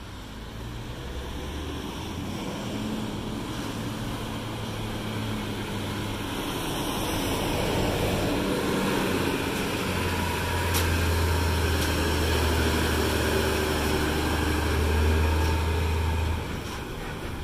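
Heavy diesel trucks driving by on a road, a low, steady engine drone with tyre noise. It grows louder as a tractor unit pulling a large extendable trailer passes close, then drops off sharply about sixteen seconds in.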